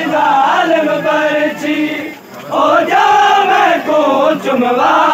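A crowd of men chanting a Punjabi noha (Shia lament) together in long sung lines, with a short break about two seconds in before the chorus resumes.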